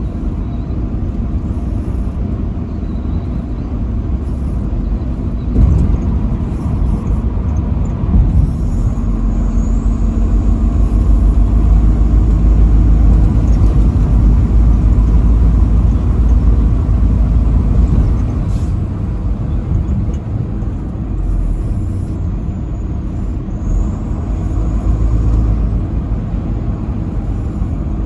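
Truck driving on a highway: a steady, deep engine and road rumble that grows louder through the middle stretch.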